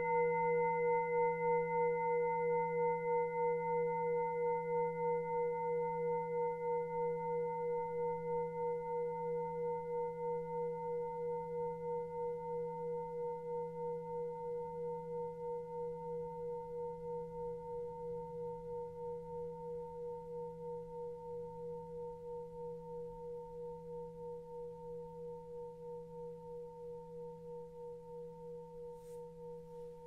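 Tibetan singing bowl ringing out after a strike, fading slowly over the whole stretch with a steady wavering pulse. Its higher overtones die away within the first few seconds, leaving two main tones. In this session its ring is the cue to change Reiki hand positions.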